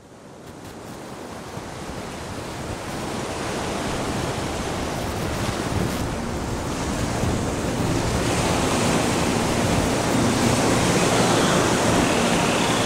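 Ocean surf, a steady rush of waves, fading in from silence and growing gradually louder. Faint steady musical tones begin to come in under it near the end.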